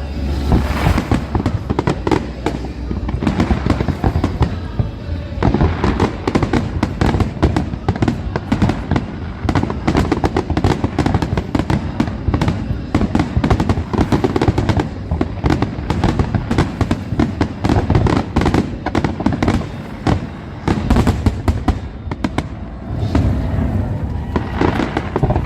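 Aerial fireworks display: a continuous barrage of shell bursts and rapid crackling, many sharp bangs a second, with a deeper boom near the start.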